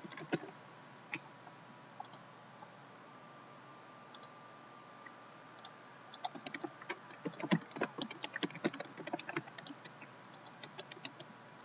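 Typing on a computer keyboard: a few scattered key clicks, then a quick run of keystrokes from about six seconds in and a shorter run near the end.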